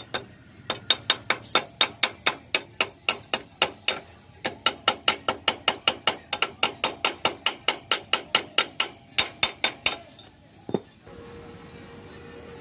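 A hand hammer striking the welded steel side-stand bracket on a motorcycle frame in rapid, even metallic taps, about four a second, with a short pause near the middle. The taps stop near the end, leaving a faint steady hum.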